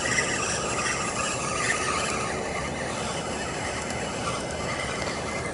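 Fishing reel being cranked to retrieve line on a hooked bass, a steady mechanical grinding of the reel's gears.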